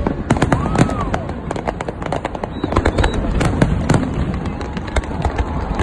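Aerial fireworks display: a rapid, continuous run of sharp bangs and crackling shell bursts over a low rumble, with a short whistle rising and falling about a second in.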